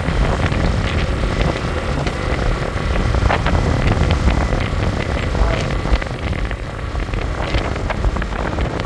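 Motor scooter riding along a road: heavy wind rumble on the microphone over the scooter's engine and tyre noise, with scattered short knocks and rattles.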